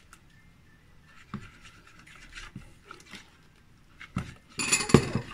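Plastic whisk stirring batter in a bowl, with soft scrapes and a few light taps. Near the end comes a louder rustling scrape, about a second long, as flour is poured in and whisked through.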